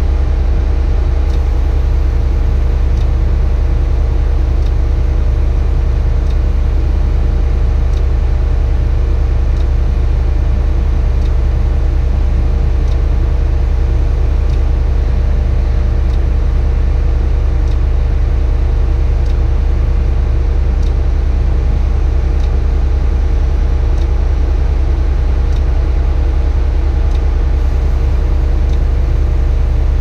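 Tadano 180G-5 crane's diesel engine running steadily, a deep constant drone heard from inside the operator's cab, with faint ticks about every second and a half.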